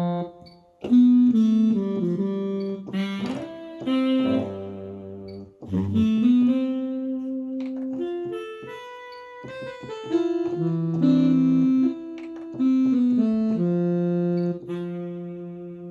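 Yamaha MODX6 synthesizer playing short melodic phrases of held single notes, a few of them sliding up into pitch, as its preset sounds are auditioned.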